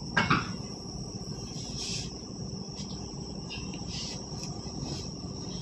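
Steady high-pitched chirring of crickets in the background, with the rustle of cotton suit fabric being unfolded and laid out a few times.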